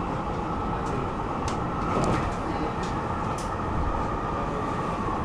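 Stockholm metro train running, heard from inside the carriage: a steady rumble of wheels on the track with a faint steady whine, and a few brief high-pitched sounds above it.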